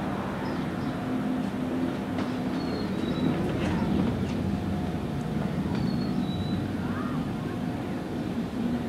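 Steady low rumble of outdoor background noise with a faint steady hum, and a few faint, short high chirps scattered through.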